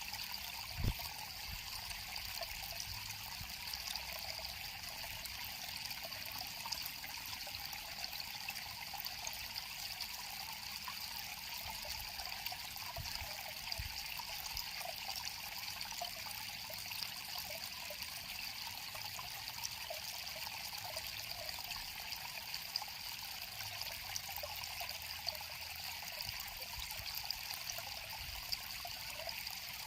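River water flowing and trickling steadily over stones, with a few brief low thumps.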